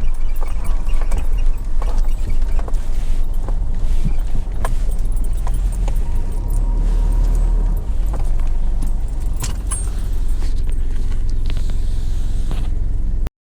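Vehicle rolling slowly along a rough dirt track, heard from inside the cabin: a steady low rumble with constant light rattling and clinking of loose things, cut off abruptly just before the end.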